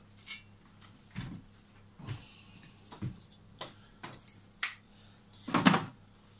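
Clicks and knocks of tools and a wooden branch being handled on a workbench, as a folding pruning saw and a wooden-handled tool are picked up and put down; about six short knocks, with a louder, longer scrape a little before the end.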